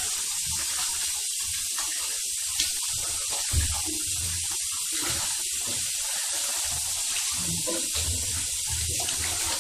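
Cola-and-water bathwater sloshing as a body shifts around in a bathtub, over a steady hiss, with two short knocks a few seconds in.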